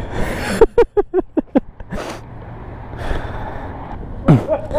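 A person's voice in a quick run of about six short pulses falling in pitch, about half a second in, over a steady low rumble; another voice sound comes near the end.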